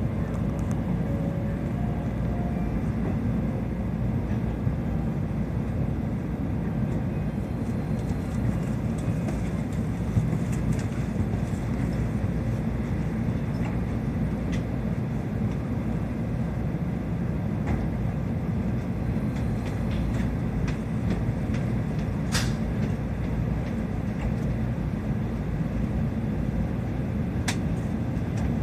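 Tokaido Shinkansen train running at speed, heard inside the passenger car as a steady low rumble, with two sharp clicks late on.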